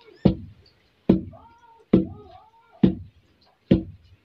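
A long wooden pestle pounding rice in a wooden mortar: five heavy thuds, a little under one a second, as the grains are beaten down into flour for rice roti. Short wavering high cries sound between the strokes.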